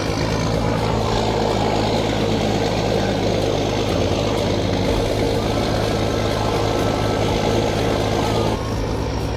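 Tow vehicle's engine running steadily while under way, with a steady hum and noise from the drive; it eases off slightly near the end.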